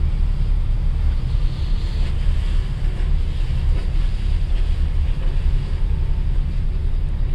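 Wind buffeting the microphone, a steady low rumble that rises and falls, over a faint rush of water.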